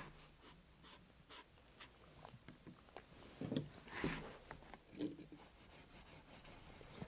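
Faint scratchy rubbing and light handling of a leather edge being dampened with a sponge and slicked, with a few short louder scuffs around the middle.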